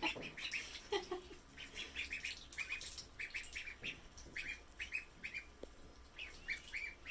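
Ducklings peeping, a steady run of short, high peeps a few times a second.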